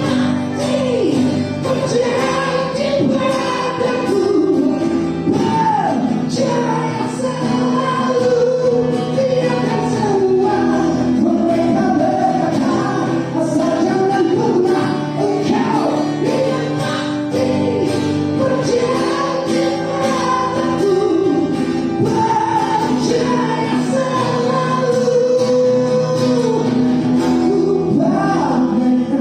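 Live band performance with a singer's voice over sustained accompanying chords.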